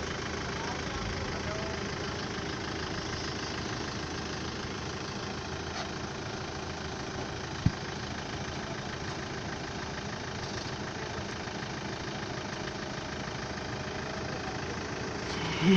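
An engine idling steadily, with one sharp click a little past halfway.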